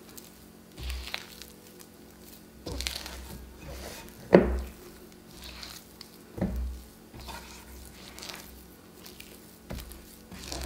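Wet, sticky sourdough dough being kneaded and squeezed by hand in a bowl as the starter is worked in: irregular squishes and sticky slaps, the loudest about four and a half seconds in.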